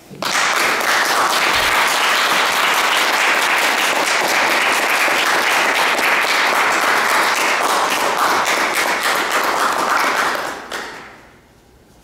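Audience clapping in welcome: steady applause that starts abruptly and dies away about ten and a half seconds in.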